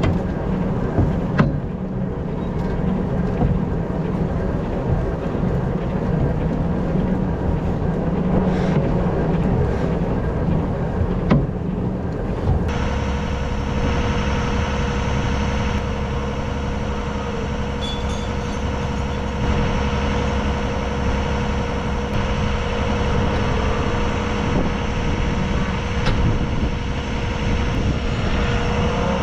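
Tractor engine running steadily while driving, with a few sharp knocks and rattles in the first half. About halfway through the sound shifts to a heavier low rumble with a steady hum on top.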